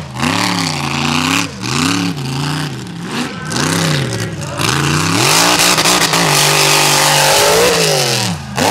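Mega truck engine revving, its pitch climbing and falling several times in quick succession, then held at high revs for a few seconds before dipping near the end.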